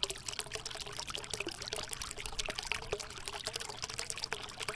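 Water trickling steadily over rocks, with many small splashes and drips.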